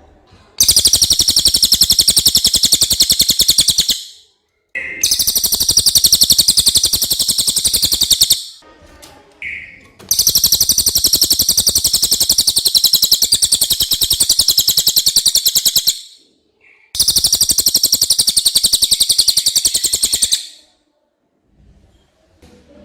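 Cililin songbird singing: four long, high, very rapid trills, each lasting several seconds, with short pauses between them.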